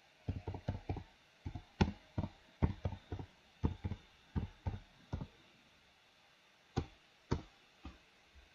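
Typing on a computer keyboard: a quick run of key clicks for about five seconds, then, after a pause, three single clicks.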